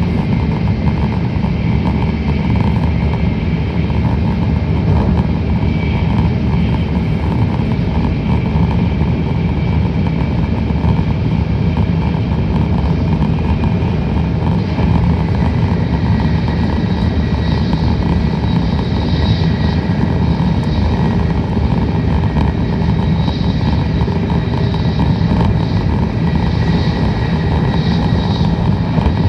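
Tokaido Shinkansen train running at speed, heard from inside the passenger car: a steady, loud low rumble of wheels on rail and rushing air, with faint high tones coming and going in the second half.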